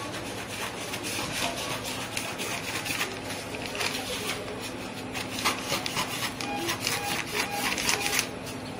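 Scissors cutting through brown pattern paper: a long run of snips with the paper rustling and crinkling as it is held down and moved, the strokes louder in the second half.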